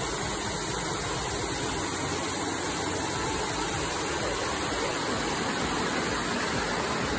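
Water cascading over rocks in a small tiered waterfall on a creek: a steady, unbroken rush of falling water.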